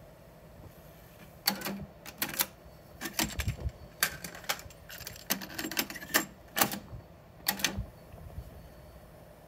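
Cassette deck mechanism clicking and clunking as one cassette is ejected and another loaded and the door shut, a string of sharp clicks between about a second and a half and eight seconds in. The deck is a Technics RS-B85 three-head deck.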